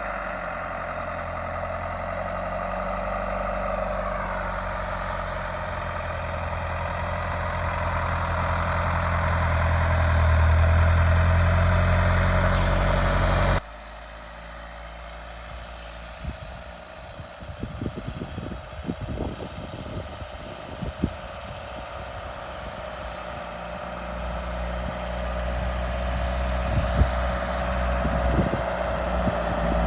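Tucker 1544 Sno-Cat's Isuzu 4BD1T turbo diesel running as it drives, growing louder over the first several seconds. About halfway through it cuts off suddenly to a quieter engine sound with scattered knocks and rattles, which builds again near the end.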